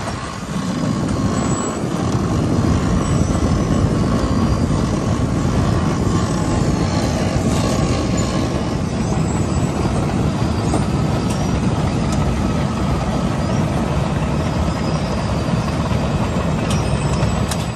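Heavy machinery running steadily with a dense low rumble, a faint steady whine and scattered light rattles and clicks. The sound cuts off abruptly at the end.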